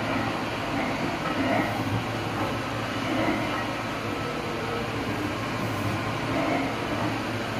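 Electric dough kneading machine running, its mixing arm turning dough in the stainless-steel bowl: a steady motor hum with a low drone.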